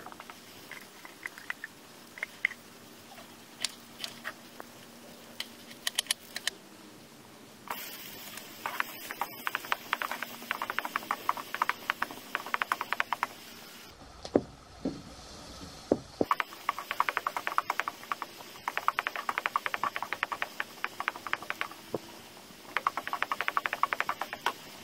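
Solid fat melting in a hot steel wok, spitting with scattered pops, then sliced onions frying with a dense, rapid crackling sizzle.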